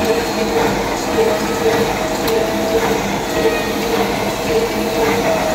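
Automatic welded wire mesh machine running: a loud, continuous mechanical clatter with a regular, repeating beat.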